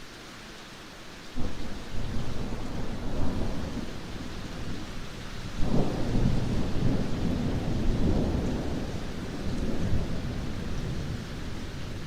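Thunder rumbling over steady rain. A deep clap breaks in about a second and a half in, and a second, sharper one comes near the middle; both roll on and slowly fade.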